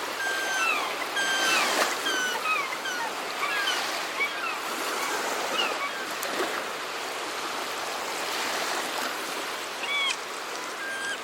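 Seagulls crying over the steady wash of surf: many short, falling calls, one after another.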